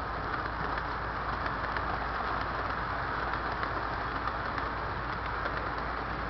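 Model freight train rolling along its track close by, a steady running noise of wheels on rail with frequent light ticks.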